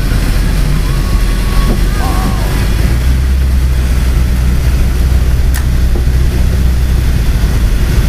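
Steady low rumble of a car driving on a snow-covered road, heard from inside the cabin, with a single click about five and a half seconds in.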